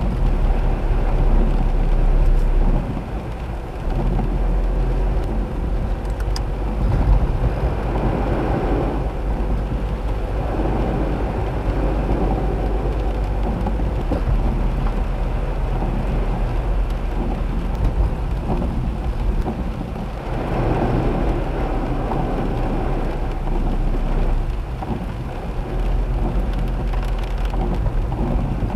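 Heavy rain and tyres on a waterlogged road heard from inside a moving car, over a steady low engine and road hum; the water noise swells twice, about eight and twenty seconds in.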